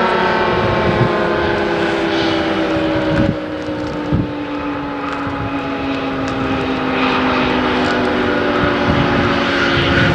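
Federal Signal 3T22 rotating warning siren sounding its 10/12-port chord of several tones, winding down with its pitch falling slowly. A couple of brief low knocks about three and four seconds in.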